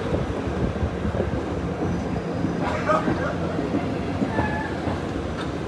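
F-line heritage streetcar running along its rails, heard from on board: a steady rolling rumble with a low hum.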